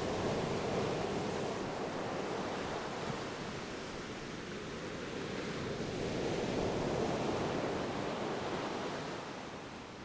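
Ocean waves washing on a shore, a steady surf hiss that swells and ebbs slowly and fades down near the end.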